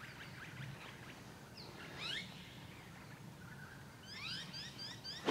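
Birds chirping over quiet open-air background: a couple of rising calls about two seconds in, then a run of short chirps repeated about four times a second near the end.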